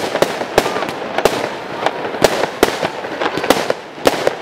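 Zeus Fireworks Avenger barrage firing, a quick uneven run of sharp shots and bursts, about three a second, over a constant crackling hiss.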